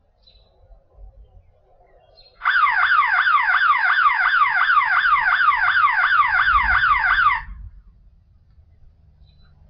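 YoLink battery-powered outdoor security siren sounding a muffled alarm of fast repeating pitch sweeps, about three a second. It starts about two seconds in and cuts off suddenly after about five seconds.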